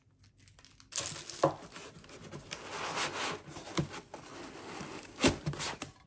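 Foam packing insert and cardboard box rustling and scraping as the insert is worked out of the box and a plastic mounting bracket is lifted out. It starts about a second in, with a few sharp knocks, the loudest near the end.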